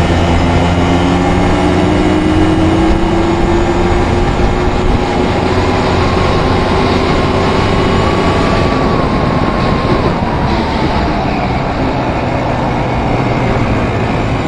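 ATV engine running under way, its pitch climbing slowly as it pulls along over the first eight seconds, then easing off about ten seconds in, over steady wind and road noise.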